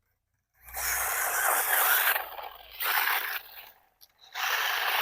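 Gantry Pro brushless 4WD RC off-road car running on gravel, its tyres throwing up gravel in three hissing, scraping bursts that start and stop suddenly. The first burst is the longest.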